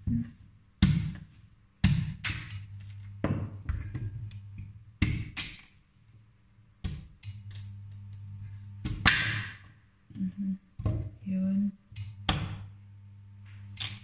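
Knife slicing through raw sweet potato and striking a cutting board: about eight separate thunks, spaced one to two seconds apart.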